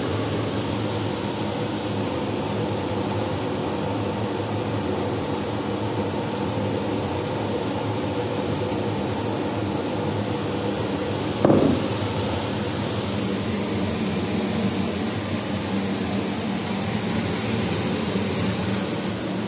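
Steady mechanical hum, with one brief thump a little past halfway through.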